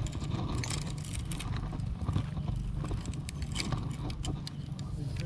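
Small clicks and rattles of a baitcasting fishing reel being handled as snagged line caught in it is worked free, over a steady low rumble.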